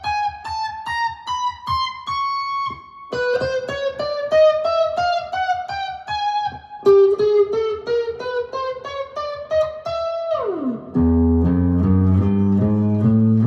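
Mulecaster electric guitar played through a Helix amp modeler: quick picked single-note runs high on the neck, each climbing in pitch. Near the end a slide drops down into lower, louder notes.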